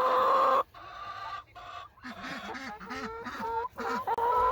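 Hens calling: a long, level, drawn-out call that ends just under a second in, a run of short, low clucks in the middle, and another long drawn-out call starting near the end.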